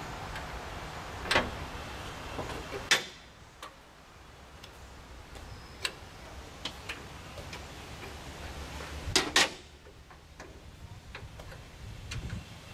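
Sparse sharp metallic clicks and clinks of a hand tool on semi-truck air-line fittings as they are worked, with a louder close pair of knocks about nine seconds in. A low rumble underneath stops about three seconds in and returns a couple of seconds later.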